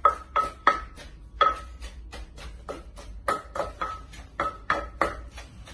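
Wooden pestle pounding in a mortar, about three sharp knocks a second, each with a brief ring, with a short pause about a second in. It is fresh shrimp being pounded with herbs and seasonings for a Lao-style shrimp salad.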